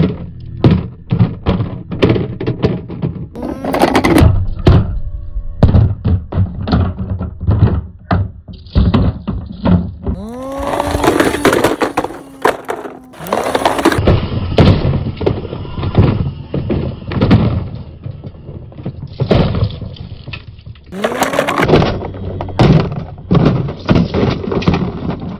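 Toy model cars and jeeps tumbling and bouncing down rock, a long run of clattering knocks and thuds as plastic and metal bodies hit stone. Twice a rising tone glides up over the knocks.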